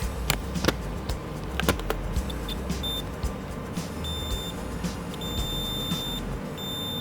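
Electronic beeps at one high pitch, first a few short ones, then longer ones of about half a second to over a second, over background music. A few sharp clicks come in the first two seconds.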